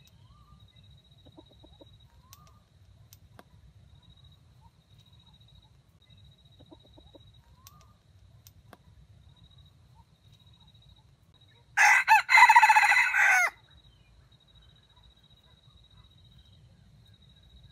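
A red junglefowl rooster crows once, loudly, about two thirds of the way in: a short, clipped cock-a-doodle-doo of about a second and a half. Before it come a few faint short rising calls and soft clucks.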